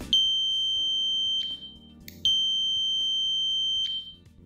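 Electric buzzer, switched through a 433 MHz RF receiver channel, giving two long high-pitched beeps of about a second and a half each, with a short gap between them.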